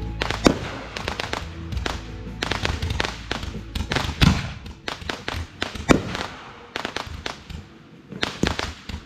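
Consumer fireworks going off in quick succession: a string of sharp bangs and crackles, thinning out toward the end. Music plays underneath during the first few seconds.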